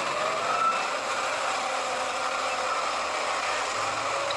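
Large wheel loader's diesel engine running steadily under load as the machine scoops and lifts a bucket of coal, with slight shifts in engine pitch.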